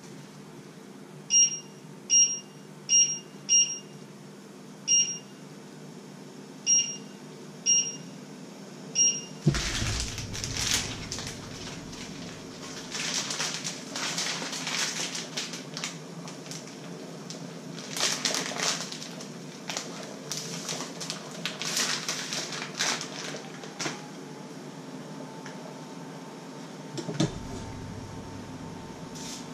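About nine short electronic beeps from a kitchen appliance's controls at uneven spacing. Then crinkling plastic as a spaghetti packet is handled and torn open, and a thump near the end as the spaghetti goes into the pot.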